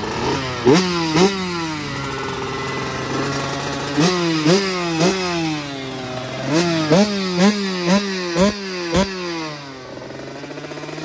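Husqvarna motocross bike's single-cylinder engine idling and revved in quick throttle blips, each a sharp rise and fall in pitch. There are two near the start, three about four seconds in, and a run of about six between six and a half and nine seconds, before it settles back to a steady idle.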